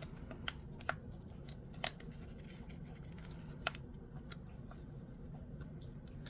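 Scissors snipping and being handled: a few sharp, separate clicks over a low steady hum.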